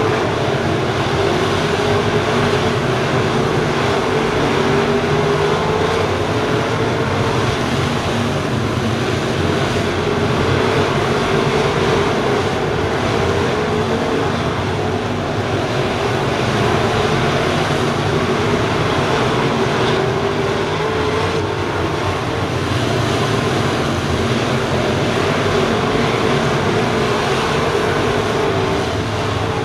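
A pack of FASTRAK crate late model dirt cars racing around the oval, their crate V8 engines blending into one loud, steady drone that rises and falls a little as the pack goes around.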